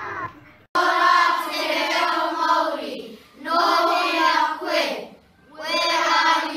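A group of children singing together in unison, in three sung phrases with short breaks between them; the first begins abruptly about a second in.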